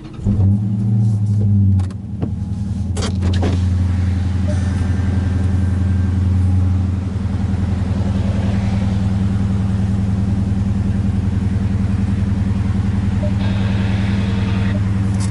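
The 6.4-litre 392 Hemi V8 of a 2019 Dodge Challenger R/T Scat Pack with active exhaust, running. It comes in loud for the first two seconds, eases off, swells a little, then settles into a steady, even idle after about seven seconds. A few clicks are heard between two and three and a half seconds in.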